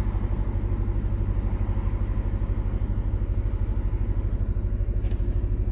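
A 2005 Nissan Altima's 2.5-litre four-cylinder engine idling steadily, warming up at what is taken to be a normal idle of about 800–900 rpm.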